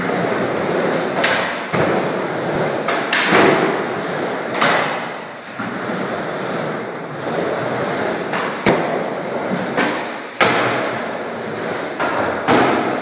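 Skateboard wheels rolling over wooden ramps, broken by sharp clacks and thuds of boards landing and striking the ramps every second or two.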